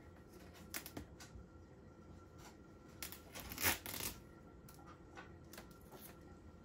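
Packing tape crinkling and peeling as a cat tugs at it with its claws and teeth: a few light clicks and rustles, then a louder tearing rasp about three and a half seconds in.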